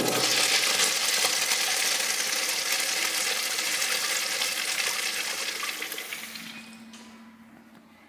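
Zurn Aquaflush flushometer flushing a Crane wall-hung urinal: a strong rush of water that starts abruptly, runs steadily for about six seconds, then tapers off.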